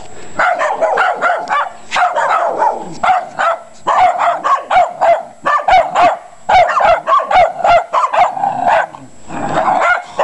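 Two small dogs barking aggressively in quick, high-pitched yaps that overlap almost without a break, with a short lull near the end.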